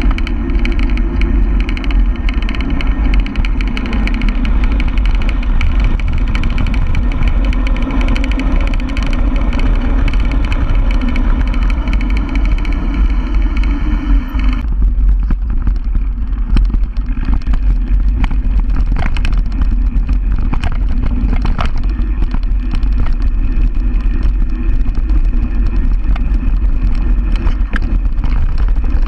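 Wind buffeting a body-mounted action camera while riding a mountain bike fast over a dirt trail, with the bike rattling over bumps. A little past halfway the hiss drops and sharper clicks and knocks from the bike stand out.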